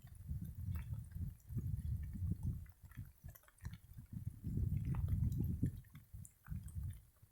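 Wind buffeting the microphone in irregular low rumbling gusts, with brief lulls between them; no horn sounds.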